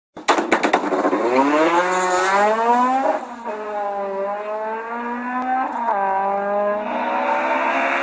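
Honda Civic race car's K20 inline-four engine accelerating hard up through the gears, starting with a quick run of sharp cracks. The pitch rises in each gear and drops at upshifts about three seconds and five and a half seconds in.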